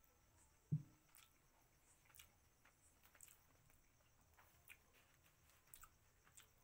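Faint eating sounds: soft chewing and small wet clicks from the mouth and from fingers working curry-soaked rice. A single short, dull low thump sounds about a second in.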